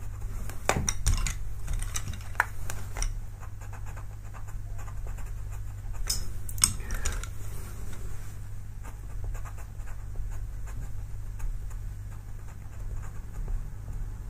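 Pastel pencil scratching on paper in short, irregular strokes, a few of them louder and sharper, over a steady low hum.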